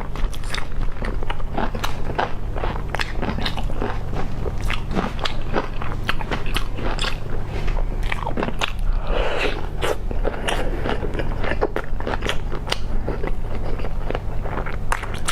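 Close-miked biting and chewing of crunchy food: dense, irregular crackling crunches, over a steady low hum.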